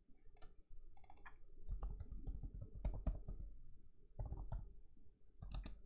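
Laptop keyboard keys clicking in irregular runs of keystrokes as a word is deleted and typed again.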